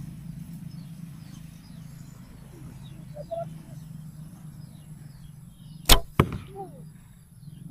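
A traditional bow shot with a wooden arrow: a sharp snap as the string is released, followed about a third of a second later by a second, softer knock as the arrow strikes the target. Faint bird chirps sound in between.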